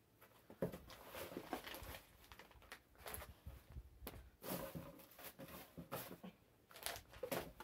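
Rustling and crinkling of packaging as a gift item is pulled from a box and unwrapped by hand, in irregular scratchy bursts.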